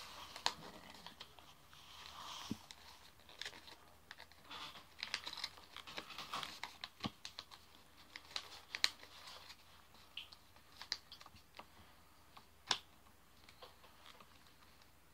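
Sheet of paper being folded and creased by hand, with soft irregular rustles, crinkles and short clicks as fingers press the folds flat against a wooden tabletop.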